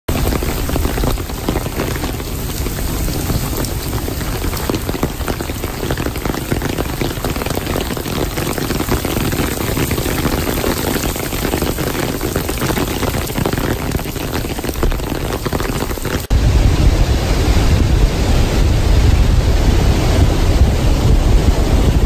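Heavy rain falling steadily on a paved path and lawn, a dense even hiss of drops. About sixteen seconds in it cuts suddenly to a louder, deeper rushing noise: a flood-swollen river with wind on the microphone.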